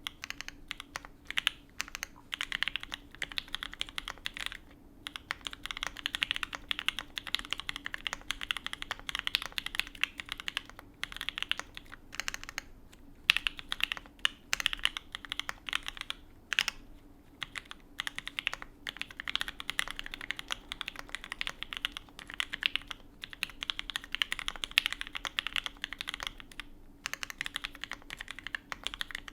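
Continuous fast typing on a custom Alice-layout mechanical keyboard with lubed and filmed H1 switches on a carbon fibre plate and GMK keycaps, a rapid stream of key clacks broken by a few short pauses.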